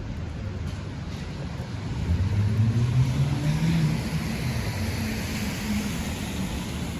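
A motor vehicle passing on a wet street. Its engine note rises from about two seconds in as it accelerates, and tyre hiss on the wet road swells, then fades.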